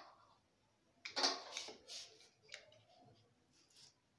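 Kitchen handling noises from dough dumplings being set on a ceramic plate beside a plastic bag: a few short rustles and light taps, about a second in and again near the end.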